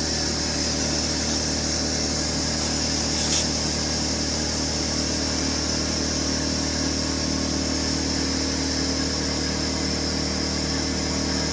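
Small air compressor running steadily, a continuous hum with a high whine, pumping up the freshly plugged tire from low pressure. A brief click about three seconds in.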